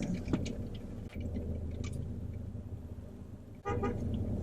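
Steady low hum of a car running, heard from inside the cabin, with a few light clicks. A short higher-pitched tone comes in near the end.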